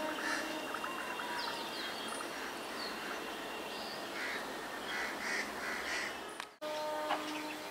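Birds calling, with many short calls over a steady background hiss. The sound drops out briefly about six and a half seconds in.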